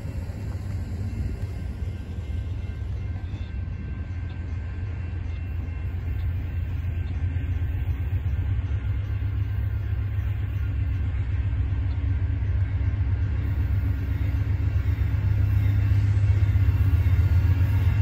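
Amtrak diesel passenger locomotive approaching: a low engine rumble that grows steadily louder as the train comes closer.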